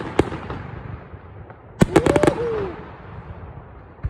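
Aerial fireworks shells bursting overhead: a bang just after the start with a rolling rumble, then a quick cluster of about five sharp cracks a little under two seconds in, and another bang near the end.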